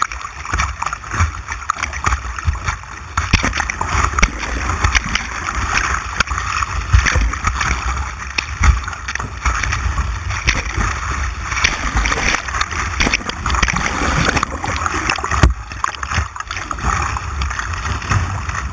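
White water rushing and splashing around a kayak on a white water course, with many short splashes against the hull, heard through a GoPro mounted on the boat.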